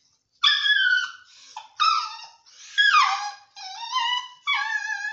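Puppy crying in a string of about six high-pitched whines and yelps, several sliding down in pitch. It is in distress at being tied up on a chain and trying to get free.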